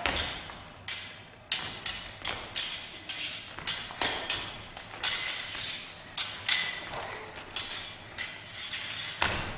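Smallsword blades clashing in a choreographed stage fight: a fast, irregular run of sharp metal strikes and parries, roughly two a second, some ringing briefly.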